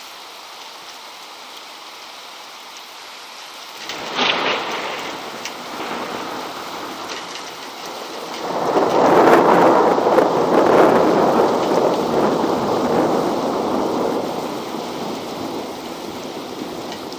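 Thunderstorm: steady heavy rain, a sudden crack of thunder about four seconds in, then a long rumble of thunder that swells about eight seconds in and slowly dies away, from lightning striking close by.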